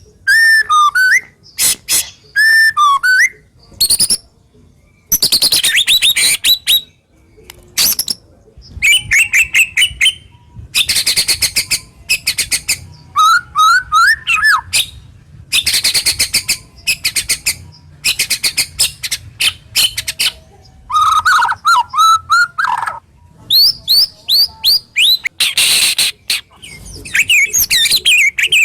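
White-rumped shama singing loud, varied song in short bouts with brief pauses: harsh rasping bursts, the 'tembakan' shots, alternating with sharp whistled notes that glide up and down and rapid high trills.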